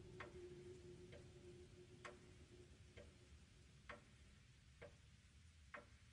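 Faint, even ticking, about one tick a second, like a clock. A faint steady low hum fades away in the first couple of seconds.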